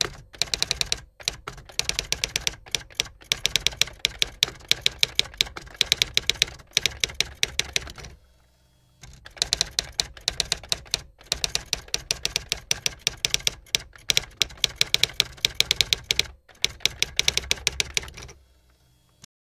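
Typewriter sound effect: rapid keystrokes clattering in quick runs as text is typed out, with short breaks and one pause of about a second near the middle, stopping shortly before the end.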